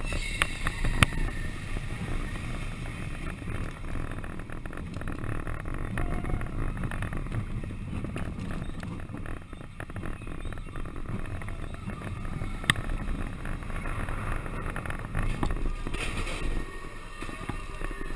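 Expedition Everest steel roller coaster train rolling along its track: a steady rumble of the wheels on the rails, with sharp clicks about a second in and again about two-thirds of the way through.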